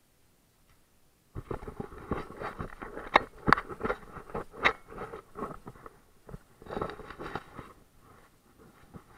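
Footsteps crunching and scraping over a concrete floor strewn with plaster and brick debris, with gear rustling. It starts about a second in as a dense, irregular run of crunches, then thins out and dies away near the end.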